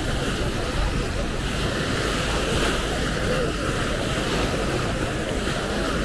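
Small Mediterranean waves breaking and washing up a sandy shore in a steady surf hiss, swelling a little partway through, with wind rumbling on the microphone.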